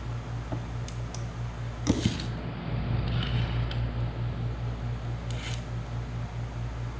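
Oil can and connecting rod handled on a workbench: a couple of light clicks, a knock about two seconds in, and softer handling noises, over a steady low hum.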